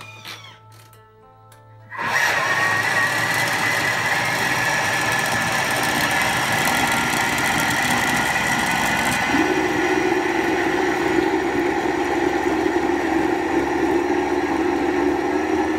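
Thermomix blender motor starts about two seconds in and runs loudly and steadily, blending chopped coconut with warm water. About halfway through its tone changes and a strong low hum joins in. Before it starts there are a few clicks.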